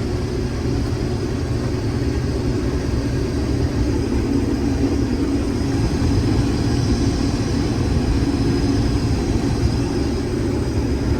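Case IH 2388 combine running under load while harvesting wheat, its engine and threshing machinery making a steady drone that grows a little louder about halfway through.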